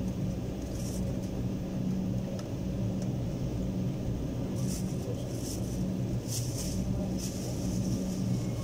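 Steady low hum of a jet airliner's cabin while it taxis after landing, its engines at idle, with a few faint clicks in the middle.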